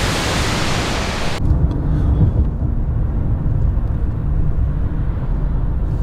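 A waterfall's steady rush of falling water cuts off abruptly about a second and a half in. It gives way to a car driving, a low, steady road and engine rumble.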